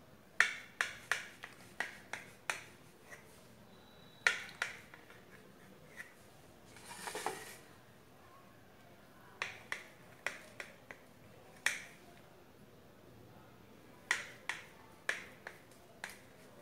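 Kitchen knife slicing through a steamed dhokla, the blade clicking and tapping sharply against the plate in little clusters with each cut, with a brief scrape about seven seconds in.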